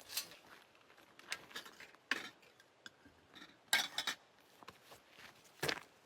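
Camp cookware and utensils handled, clinking and knocking in a few scattered, separate strokes.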